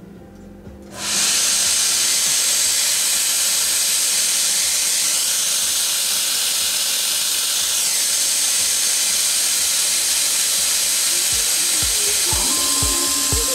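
Fogbuster mist coolant nozzle cutting in about a second in: a loud, steady hiss of compressed air and water mist blowing onto the end mill as it cuts aluminum on a CNC mill. Near the end, low regular thumps and a few held tones come in.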